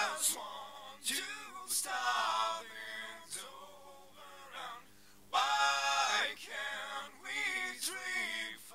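Pop vocals with no backing music, a lead voice with backing voices singing phrases of a chorus. They are heard through the dynamic EQ's delta monitor, so what sounds is only the harsh upper band around 6 kHz that the EQ is cutting back, with bright sibilant 's' sounds.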